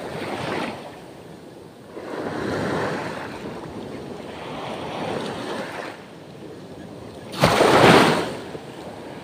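Small sea waves washing on the shore, swelling and fading every couple of seconds, with a louder sudden rush of noise about seven seconds in. Light wind on the microphone.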